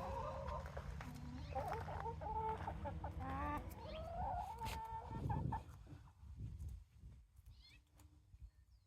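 Backyard hens clucking, a run of wavering calls that goes quiet about five and a half seconds in.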